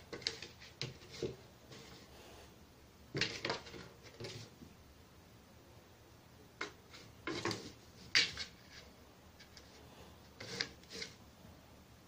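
A small cardboard box knocked and scraped across a tiled floor by a small pet playing with it, in scattered bursts of sharp knocks and scrapes: a few in the first second or so, a cluster about three seconds in, more around seven to eight seconds and again near eleven.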